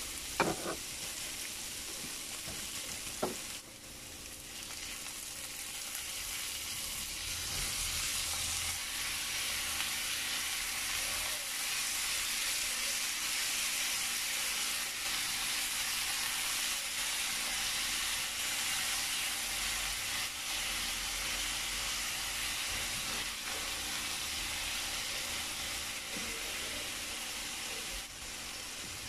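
Chopped onion, garlic and ginger sizzling in a wok, stirred with a wooden spatula that knocks twice against the pan in the first few seconds. After about four seconds the sizzle grows louder and steady as small whole squid fry in the wok.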